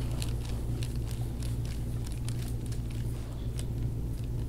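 Soft tissue of a patient's back giving faint scattered crackles and clicks under a chiropractor's forearm pressure, over a steady low hum.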